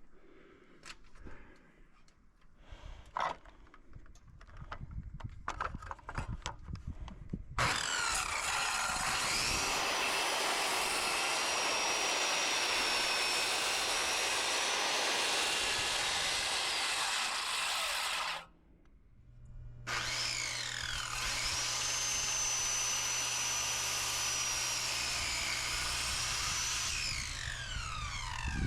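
Electric circular saw cutting through an oak post in two passes. It spins up to a steady high whine and cuts for about ten seconds, stops briefly, then starts again for a second cut of about nine seconds and winds down at the end. Before the first cut there are a few light handling clicks.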